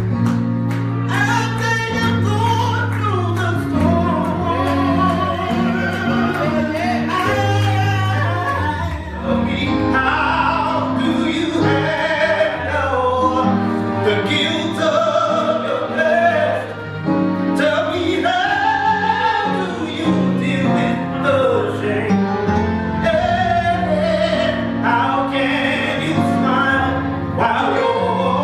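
A man singing solo at a microphone, holding long wavering notes, over instrumental accompaniment of held low chords.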